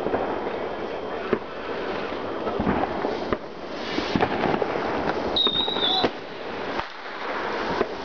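Fireworks going off: a continuous crackling hiss with scattered pops and sharp cracks, and a brief high whistle about five and a half seconds in.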